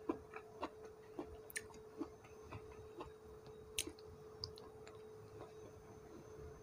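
Soft, irregular clicks and smacks of a person eating by hand and chewing, over a faint steady hum.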